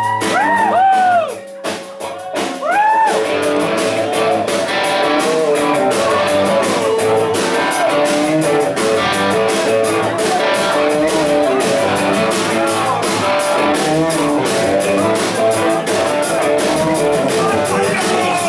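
Live rock band playing at full volume: an electric guitar takes the lead with bent notes swooping up and down in the first few seconds, then runs on with busy held notes over bass and drums.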